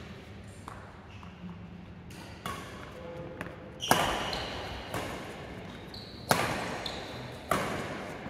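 Badminton rally: rackets striking the shuttlecock in turn, about five sharp hits a second or so apart, the loudest about four seconds in. Each hit rings out in the large sports hall.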